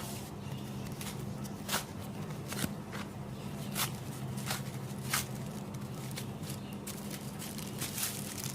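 Packaging being handled and unwrapped by hand: scattered short rustles and clicks, several of them a second or so apart, over a steady low hum.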